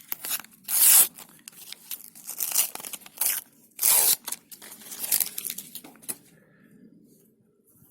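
Panini sticker packets being torn open and their wrappers crinkled: a run of sharp tearing and rustling noises, the loudest about a second in and at about four seconds, stopping after about six seconds.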